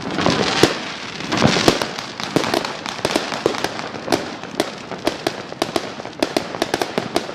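Fireworks going off: a dense string of bangs and crackling pops. Heavier bursts come in the first two seconds, then quick, sharp pops follow one after another from about three seconds in.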